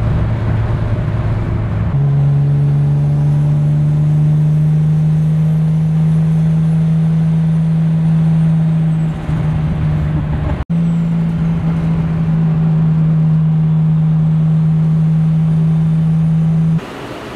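1998 Toyota Supra's turbocharged 2JZ-GTE straight-six droning steadily at cruise, heard from inside the cabin. Its pitch steps up about two seconds in and then holds, dipping briefly near the middle.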